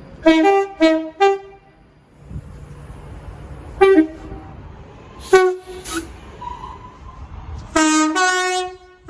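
British train horns sounding on two alternating pitches, high and low. A quick run of four short toots comes in the first second and a half, then single short blasts about four and five and a half seconds in, and a longer high-low blast near the end, with a low rumble between them.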